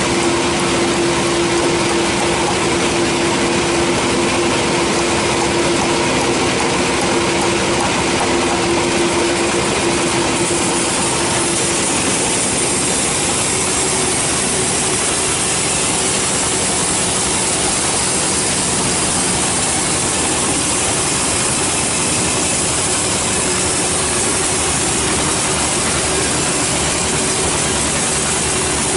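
Large band sawmill running and sawing a teak slab: a steady machine drone. A hum fades about ten seconds in as a high hiss of the blade cutting takes over.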